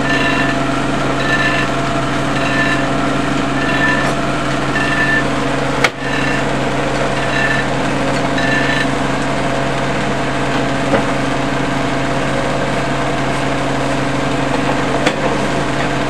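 Restored antique circular sawmill running between cuts, with no blade in the wood: its power unit and drive give a steady hum. A short high chirp repeats about every half second for the first nine seconds, and a single sharp knock comes about six seconds in.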